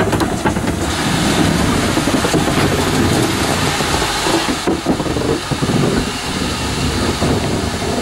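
Great Western steam tank locomotive and its coach rolling past, with a steady rumble of wheels on the rails and a scatter of clicks about halfway through.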